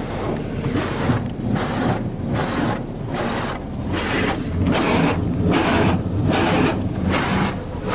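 High-pressure water jets of a Ryko Softgloss Maxx wash's rocker panel blasters spraying against a truck's lower body, heard from inside the cab. The spray hiss comes in regular sweeps, about one every 0.7 s.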